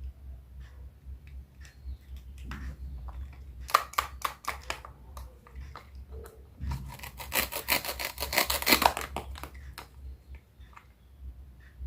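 A knife cutting through vegetables or fruit on a cutting board: scattered single cuts, a few quick strokes about 4 s in, then a fast run of chopping strokes from about 7 to 9 s, over a steady low hum.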